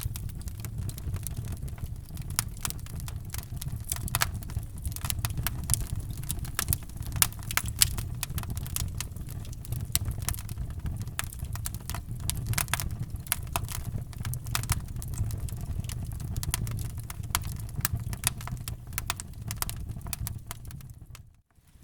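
Wood fire in a fireplace crackling, with many sharp pops and snaps over a steady low rumble of the flames. The sound drops out for a moment near the end.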